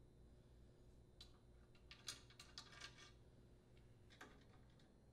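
Faint, small metallic clicks and ticks from unthreading the oven door handle's screws with a nut driver, a quick cluster of them in the first half and one more near the end.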